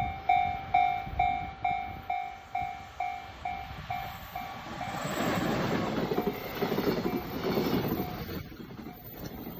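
Japanese level-crossing alarm ringing at about two strikes a second and fading out. About five seconds in, a freight train rumbles and clatters through the crossing, then dies down near the end.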